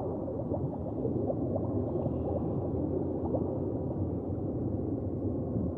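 Underwater ambience: a steady low rumble with gurgling and many short, bubbly upward chirps.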